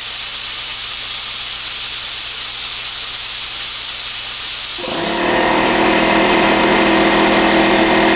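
Compressed air blasting from a shop duster blow gun fed by a DeWalt 6-gallon pancake compressor: a loud, steady hiss. About five seconds in, the hiss thins and a steady hum with several tones joins it until the end.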